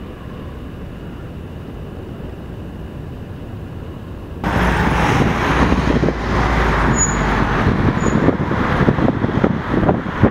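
Motor boat engine running with a low, steady rumble. About four and a half seconds in, the sound jumps abruptly to a louder, rough rushing noise with irregular thumps of wind on the microphone.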